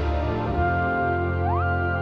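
Background music: held notes over a steady low bass, with a note sliding up in pitch near the end.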